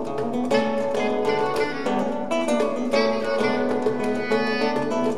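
Acoustic guitar picking a melody of single plucked notes and chords, the notes ringing on under held lower tones.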